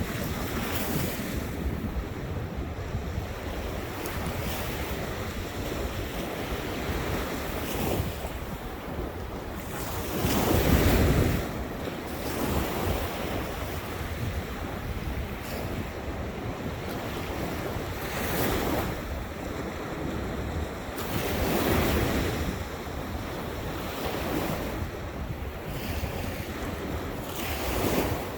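Waves breaking on the shore one after another, each rising and falling in a wash of surf, the strongest about ten seconds in; wind buffets the microphone throughout.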